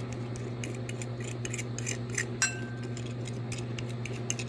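A metal fork stirring and scraping a sticky seasoning sauce around a ceramic bowl: quick light clicks and scrapes, with one sharper ringing clink of the fork on the bowl about two and a half seconds in, over a steady low hum.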